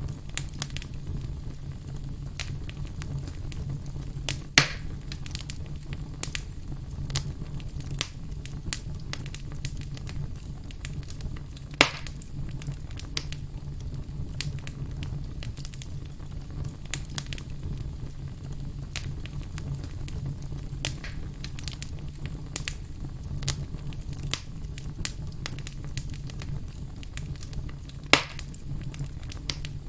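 Firewood burning: a steady low rush of flame under constant small crackles, with sharp louder pops, the three biggest about four and a half seconds in, about twelve seconds in and near the end.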